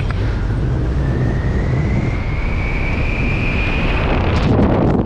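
Wind rushing over a skydiver's helmet camera microphone during the descent under the parachute, with a thin whistle that rises slowly in pitch. Near the end a short burst of louder flapping buffets the microphone.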